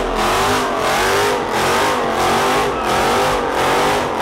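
A car doing a burnout: the engine is held at high revs and the tires squeal with a wavering pitch, pulsing in regular surges.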